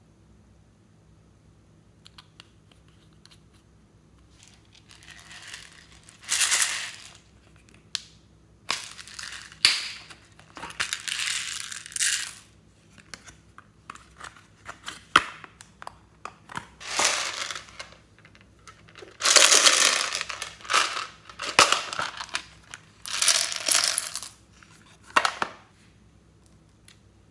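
Small plastic beads poured and dropped onto slime in a plastic tray, with clicks and crunching from plastic makeup packaging being handled and opened. The sounds come in bursts of a second or two, with short pauses between them.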